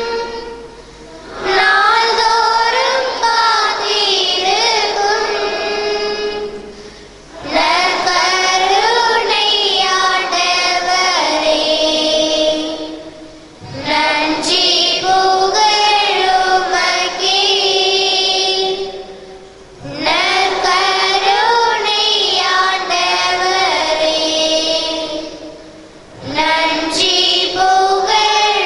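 High voices singing a Tamil hymn together in long phrases of about six seconds, each followed by a short breath.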